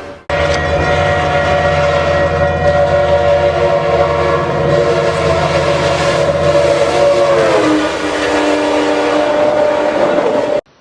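Passing train's multi-tone air horn held in one long blast over the low hum and rumble of the train, the horn's pitch dropping about three-quarters of the way through as it goes past.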